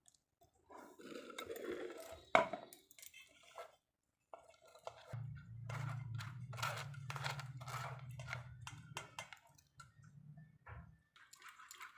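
Kitchen utensils clinking and scraping against a sieve and bowl while blended watermelon pulp is strained, with one sharp clack early on. A steady low hum runs under the scraping through the middle.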